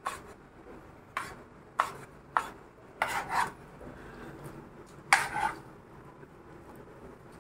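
Kitchen knife chopping cashew apples on a plastic cutting board: several sharp strikes of the blade on the board about half a second apart. Then two longer scraping clatters, around three and five seconds in, as the pieces are scooped off the board on the blade and dropped into a steel bowl.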